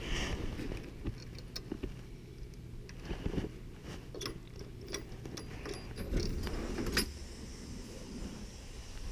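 Light, irregular metal clicks and clinks of hand tools on mounting bolts, with rustling, as a grille guard is bolted to a pickup's frame from underneath.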